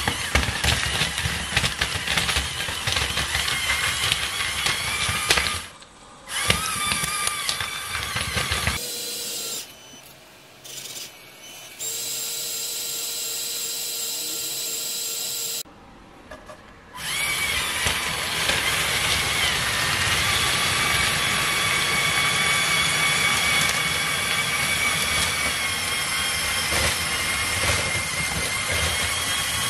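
Small electric motors and plastic gear trains of a Lego Technic Cat D11 bulldozer whirring and whining, with the pitch sliding up and down as the motors change speed. Twice the sound drops off, once briefly and once for a longer, quieter stretch with a thinner steady whine.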